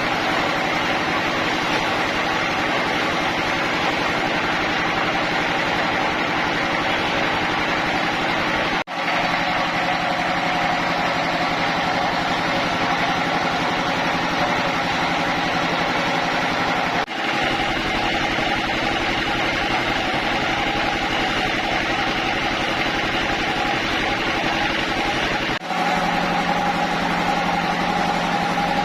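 Sawmill machinery running steadily, a continuous engine-like hum with several held tones. There are three brief breaks, after each of which the tones shift slightly in pitch.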